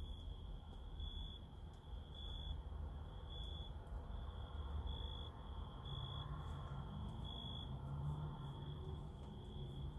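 A steady high-pitched insect-like trill, swelling louder about once a second, over a low rumble.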